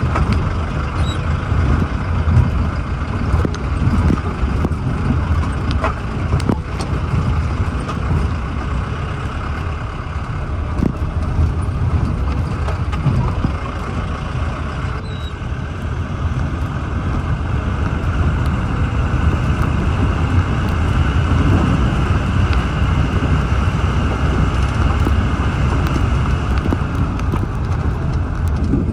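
Off-road jeep's engine running steadily on a rough mountain track, with occasional knocks and rattles.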